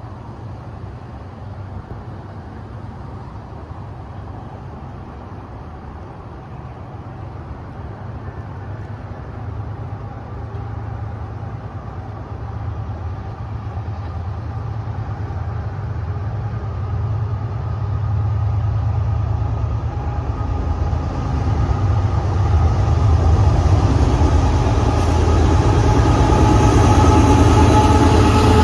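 Freight train with CSX diesel-electric locomotives approaching: a low diesel drone that grows steadily louder, with a whine of a few steady tones coming up over the last ten seconds as the locomotives draw near.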